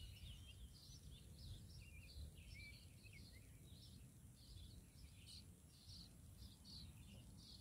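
Faint bird chirps, many short calls a second, over a low steady rumble.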